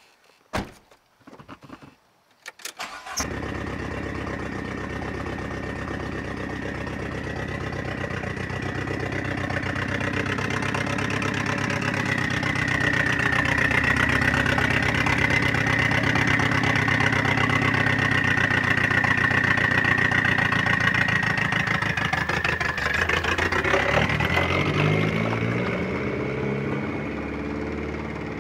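Dodge Neon SRT-4's turbocharged four-cylinder engine being started: a few clicks, then it catches about three seconds in and runs steadily, growing louder. Near the end the sound changes and fades as the car pulls away.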